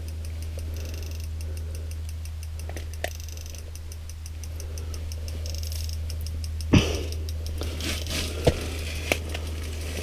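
A few short knocks and clicks from a large walleye and its hook being handled on the ice, the loudest about two-thirds of the way in, over a steady low hum.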